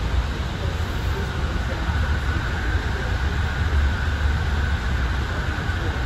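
AirTrain JFK people-mover car running along its elevated guideway, heard from inside the car: a steady low rumble with a faint high whine above it.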